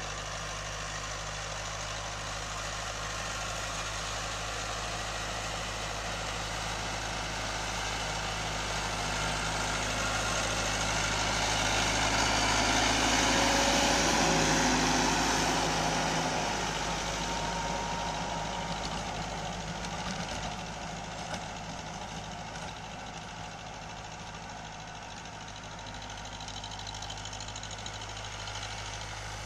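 TAFE Gajraj tractor's diesel engine running steadily under load as it pulls a rotary tiller through dry soil, with the churn of the tiller blades. It grows louder as the tractor passes close about halfway through, then fades as it moves away.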